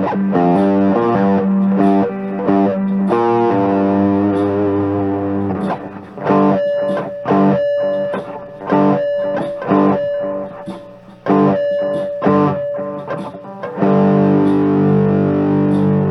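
Epiphone Les Paul Standard electric guitar played with overdrive through a small practice amp. It rings out sustained chords, then from about six seconds in plays short chord stabs separated by gaps, and near the end settles on a held chord again.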